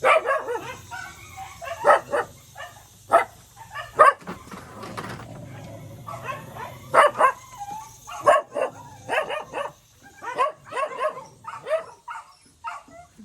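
Shelter dogs barking, short barks repeated on and off, with a lull about four to six seconds in.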